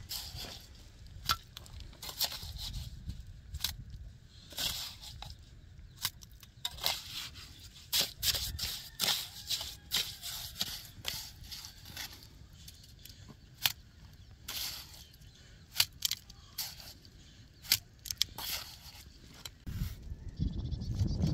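Steel trowel scraping and scooping cement mortar in a metal pan and working it onto concrete blocks: a string of short, irregular scrapes and clinks.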